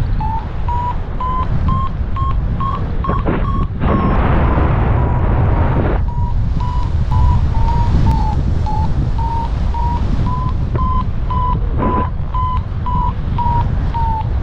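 Paragliding variometer beeping in a quick series of short tones, about two to three a second, its pitch rising a little over the first few seconds, with a short break in the beeps partway through. Wind rumbles on the microphone underneath.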